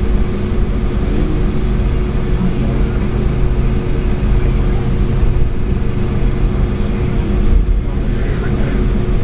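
Boeing 757-200's jet engines heard from inside the passenger cabin: a loud, steady rumble with a steady hum running through it.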